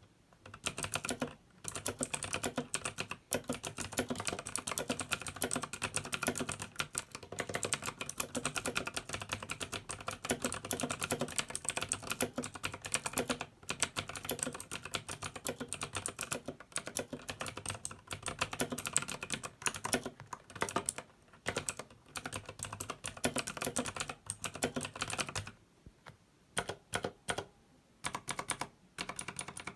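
Fast continuous typing on a Razer BlackWidow Elite mechanical keyboard with Razer Green clicky switches, a dense stream of sharp key clicks; near the end it slows to a few short bursts of keystrokes with pauses between.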